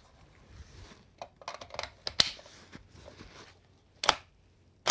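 A magazine being seated in a FEG SVD (HD-18) rifle, with small rattles and a sharp click about two seconds in, then the bolt charged to chamber a round: two sharp metallic clacks near the end, the second the loudest.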